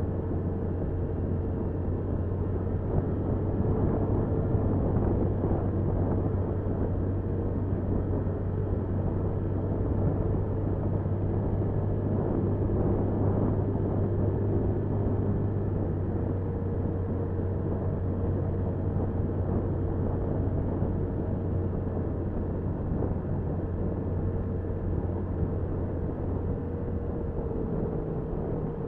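Motorcycle engine running steadily under way, with road and wind noise, as picked up by the bike's own dashcam.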